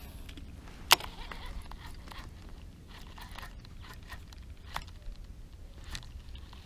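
Baitcasting reel and rod being worked on a jerkbait retrieve: one sharp click about a second in as the reel is engaged, then a few fainter clicks over low handling noise as the line is reeled in and twitched.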